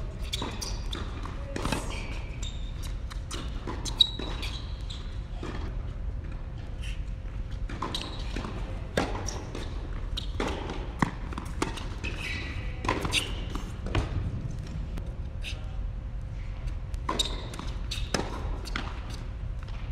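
Tennis balls struck by rackets and bouncing on an indoor hard court during rallies: sharp knocks every second or two, some in quick pairs, in a large hall. A steady low hum runs underneath.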